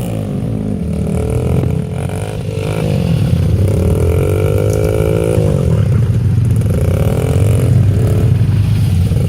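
Small engine of a Chinese Baja snowmobile running and revving, its pitch rising and falling several times and getting louder about three seconds in. The owner says the motor has lots of blow-by.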